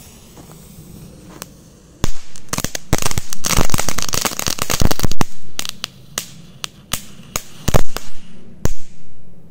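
A firecracker stood upright in a log burning out instead of exploding. About two seconds in it starts spewing sparks and smoke with a loud hiss and a rapid run of sharp crackling pops, which thins to scattered single pops, and the hiss fades away near the end.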